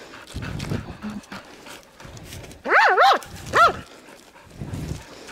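A small dog giving three high-pitched yelping barks in quick succession about halfway through, each rising and falling in pitch.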